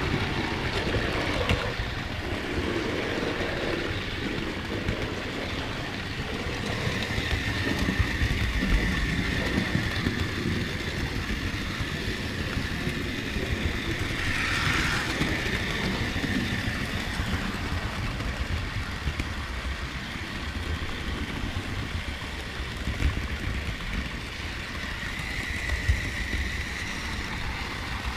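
Model railway train running along the track, heard from a camera riding on the train: a steady rumble and clatter of wheels on rail, with a high whine that comes and goes.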